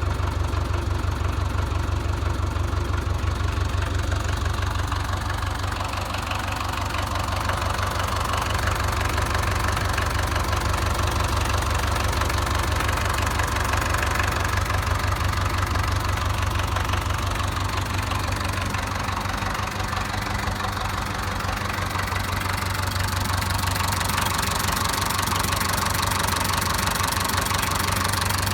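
Massey Ferguson 130 tractor's diesel engine idling steadily with an even, rhythmic knock.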